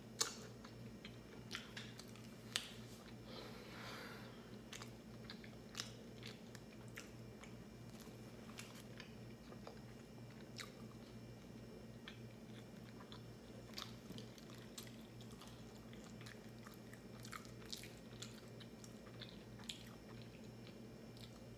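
Close-miked chewing of a mouthful of pizza topped with onions, peppers and spinach: soft, irregular wet clicks and small crunches, faint, over a steady low hum.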